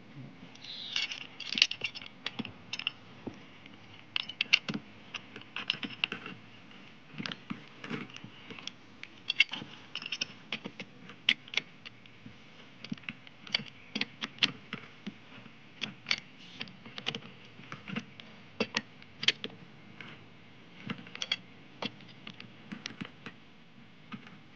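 Pipe wrenches clicking and clinking against the threaded outlet fitting and steel body of a submersible borehole pump as the riser pipe is tightened onto it: many irregular sharp metallic clicks and taps.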